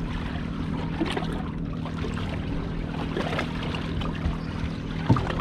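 Honda outboard motors idling steadily, a low even hum, with water splashing and trickling against the boat's hull.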